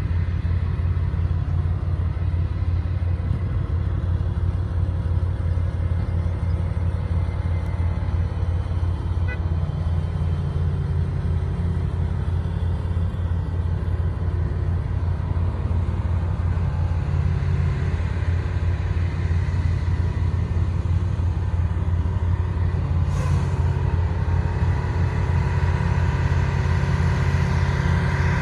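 Oshkosh M1070 heavy tractor's diesel engine running steadily under load as it hauls a trailer up a gravel road, a deep continuous rumble. A sharp click comes about three-quarters of the way through, and after it a steady higher whine grows stronger as the truck gets closer.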